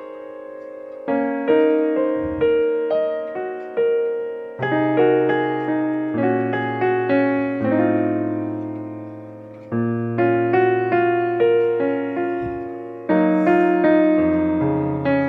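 Background piano music: a gentle melody of struck notes that ring and fade, with bass notes joining about four and a half seconds in.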